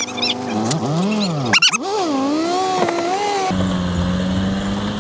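Van engine revving up and down again and again as the driver works the throttle, its rear wheel spinning in the ditch to drive out. About three and a half seconds in the sound changes abruptly to a steadier, lower engine drone.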